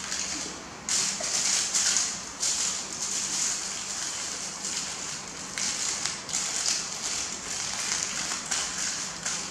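Aluminium foil crinkling and rustling in irregular bursts as hands fold it into a packet, loudest a second or two in.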